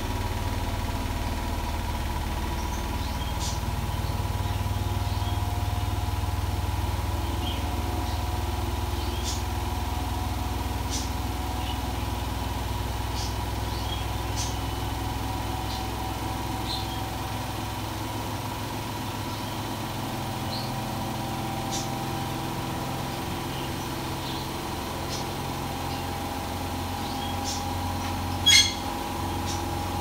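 Hotpoint-Ariston Aqualtis washing machine in its high-speed spin: the drum motor runs with a steady whine over a low hum, and the cabinet shakes a little because the floor is uneven. There are faint scattered ticks and one sharp click near the end.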